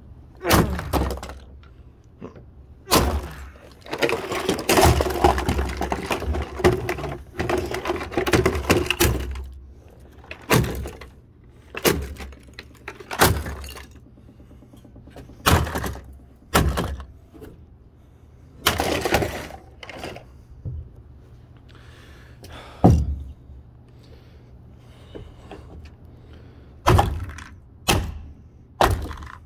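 Repeated sledgehammer blows smashing an old plastic coffee maker on wooden floorboards: about a dozen separate crashing hits a second or two apart, with a longer spell of crashing and rattling debris a few seconds in.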